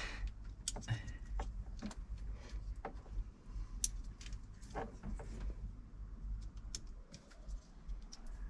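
Small screwdriver clicking and scraping against a plastic wiring connector block on a car radio head unit as its clips are bent and the block is prised out: a scatter of light, irregular clicks and taps.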